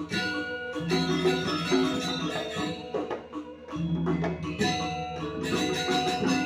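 Balinese gamelan ensemble playing: struck metallophones and gongs ringing over drums, thinning briefly a little past the middle before the full ensemble returns.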